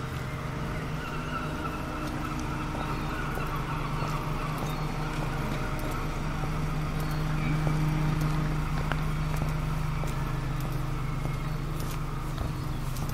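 An engine running with a steady low hum that grows louder just past the middle, with a few faint clicks over it.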